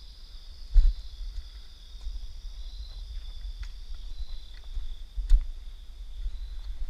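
Crickets trilling steadily in two high, unbroken tones, over a low rumble. Two sharp thumps, one about a second in and one about five seconds in, are the loudest sounds.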